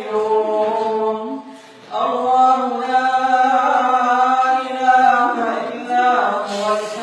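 An imam's voice chanting Quranic recitation in prayer, holding long drawn-out notes, with a short pause for breath about one and a half seconds in.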